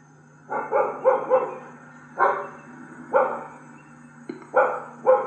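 A dog barking repeatedly: a quick run of four barks, then single barks about a second apart.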